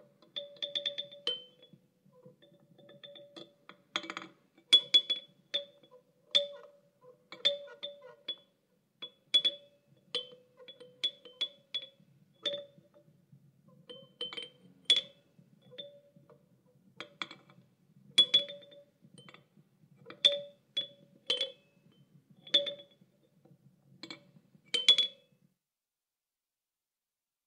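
An irregular series of sharp clicks and clanks, each strike ringing briefly at the same two pitches, like a small object knocking on something resonant. About one to two strikes a second, stopping about 25 seconds in.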